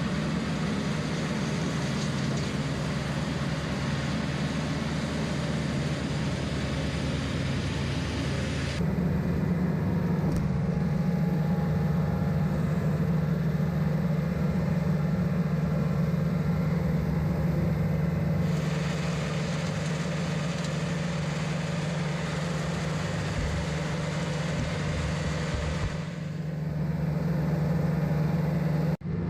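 Diesel engine of a John Deere 110 tractor loader backhoe running steadily under load while it drives a 72-inch, three-blade, belt-driven King Kutter finish mower through the 540 rpm PTO. The sound changes abruptly three times and drops out briefly near the end.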